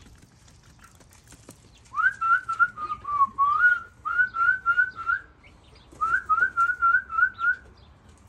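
A person whistling to call young hens: quick runs of short, up-flicked notes, about four a second. There are two phrases, starting about two seconds in and about six seconds in, and the first dips lower in pitch partway through.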